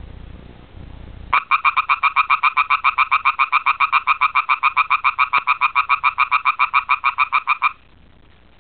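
A frog calling: one long trill of rapid, even pulses, about eight a second, that starts abruptly a little over a second in and lasts about six seconds before stopping.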